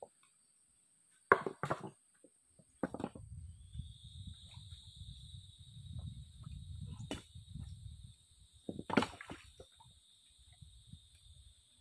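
Stones knocking against each other as rocks are lifted and shifted by hand in a shallow stream bed, several sharp knocks with a low rumbling scrape between them, over a steady high-pitched drone.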